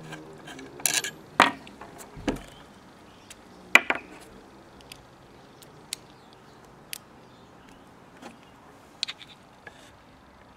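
Handling clicks and light metal clinks as the trigger guard screw and a screwdriver are handled and set down on a wooden table while an air rifle's stock is taken off. A few sharp knocks come in the first four seconds, then fainter scattered ticks.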